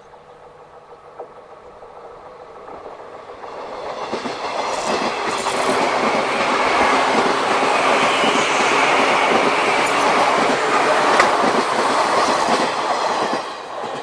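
A JR 185 series electric multiple unit passing close by, its wheels clattering over the rail joints. The sound builds over the first few seconds as the train approaches, stays loud while the cars run past, then drops off sharply near the end as the last car clears.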